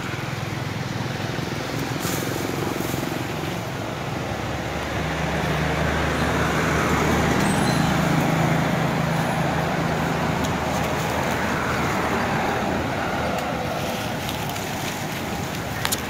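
A motor vehicle passing: engine and road noise swell to a peak about eight seconds in and then fade.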